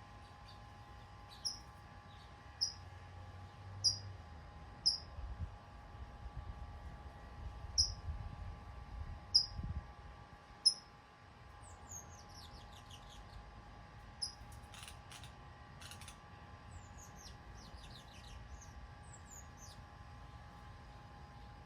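A songbird calling a single short, sharp chirp over and over, about once every second or two, with fainter twittering from other birds in the second half.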